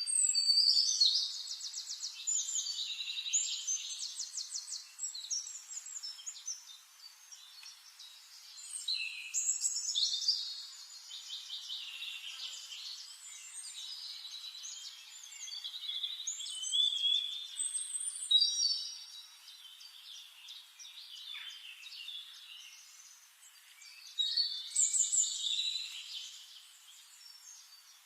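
Forest songbirds singing: repeated bursts of high, rapid trills and chirps, with quieter calls in between.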